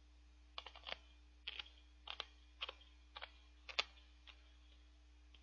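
Mouth sounds of chewing and swallowing a mouthful of slushy mango shaved ice mixed with milk: faint clicks and small crunches in about six short clusters, roughly one every half second.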